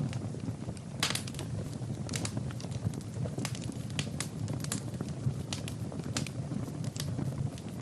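Wood fire burning in a fireplace: irregular sharp crackles and pops, a few every second, over a steady low rumble of the flames.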